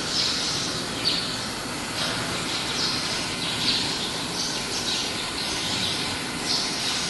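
Steady background hiss with short, high chirps repeating every half second to a second.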